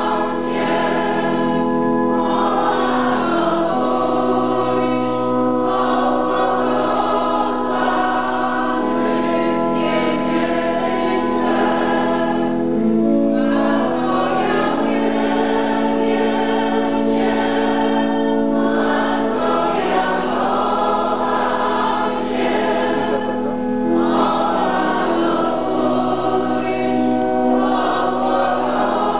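Church choir singing a hymn in chorus, over long steady held notes typical of organ accompaniment.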